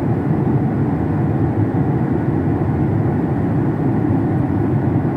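Jet airliner cabin noise in flight: the steady low rush of the engines and the airflow along the fuselage, heard from a window seat over the wing, even and unbroken.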